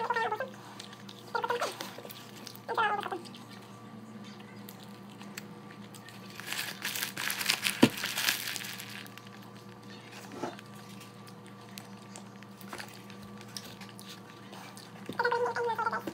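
A cat meowing: three short, rising-and-falling meows in the first three seconds and another near the end. In between, the paper wrapper of a fast-food burger rustles and crinkles for a couple of seconds, with one sharp tap.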